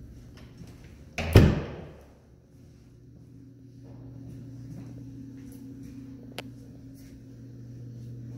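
A closet door shut with a single loud thud about a second in, followed by a steady low hum and a few faint clicks.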